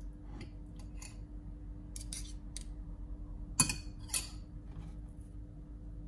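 A metal spoon clinks and scrapes against a bowl and the filling as filling is scooped out. There are a few light clicks, the sharpest about three and a half seconds in, over a steady low hum.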